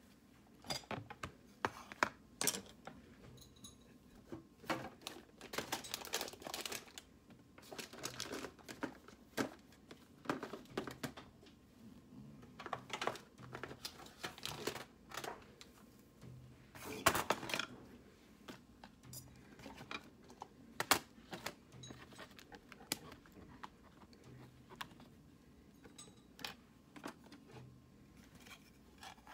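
Irregular clicks, taps and scratchy rustles, close up: small objects being handled, tapped and rubbed, in uneven clusters with short pauses between them.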